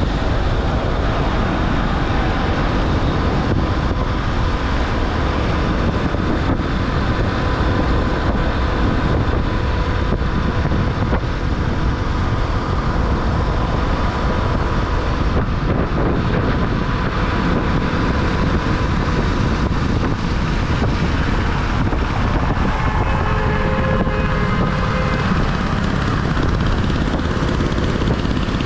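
Wind rushing over the microphone of a motorcycle riding at highway speed, with the bike's engine running steadily beneath it.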